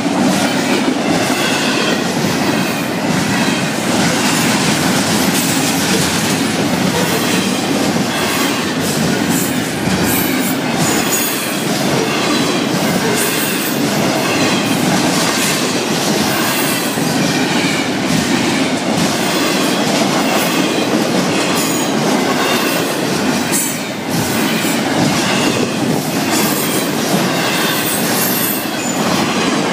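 Freight cars of a Florida East Coast Railway train rolling past continuously, with steady wheel-on-rail noise and wheels clacking over rail joints.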